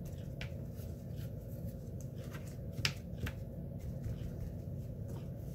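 Light ticks and scratches of a watercolour brush dabbing and working on a small piece of paper, with two sharper ticks about three seconds in, over a steady low room hum.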